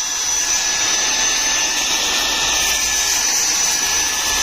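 Cordless handheld vacuum cleaner motor running steadily at speed: a rush of air with a thin, high-pitched whine held on one pitch.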